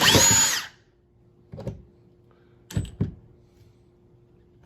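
Milwaukee M18 cordless impact driver fired in a short burst of under a second, its motor whining and cutting off abruptly as the Torx bit jumps off the screw. A few light knocks and clicks follow about a second and a half and three seconds in.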